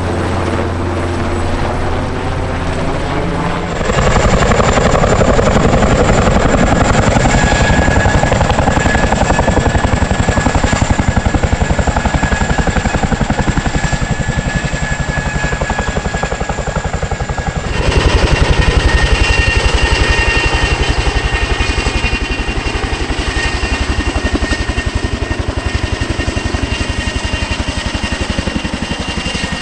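Military helicopter close by, its rotor beating rapidly under a steady high turbine whine. The sound jumps abruptly in level and character twice.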